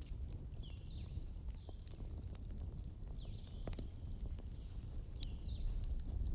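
Wood fire burning in a fireplace: a steady low rumble with scattered sharp crackles and pops. Several short high-pitched whistles or chirps come through, one longer about three seconds in.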